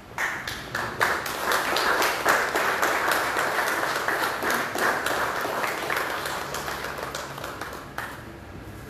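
Audience applauding: a round of clapping that starts just after the beginning, builds within about a second and dies away about a second before the end.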